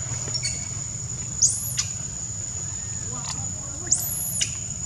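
A small kitten's high, squeaky mews, two of them about two and a half seconds apart, each rising and then falling in pitch, over a steady high drone of forest insects.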